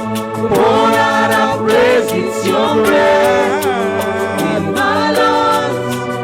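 Church worship music: voices singing long held notes with a slow waver, over a steady held accompaniment, with a light regular ticking of percussion in the highs.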